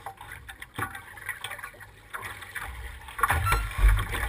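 Water lapping and knocking against the wooden hull of a C Stock racing hydroplane bobbing at rest, with irregular thumps and low rumbles, the loudest about three and a half seconds in; no engine is running.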